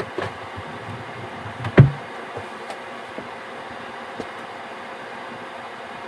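Diesel air heater's blower fan running steadily during the cool-down cycle after the burner has shut off. A single sharp knock about two seconds in, with a few faint clicks around it.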